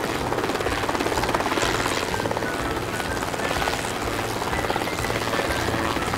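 Large military helicopter hovering, its main rotor giving a steady, rapid chop.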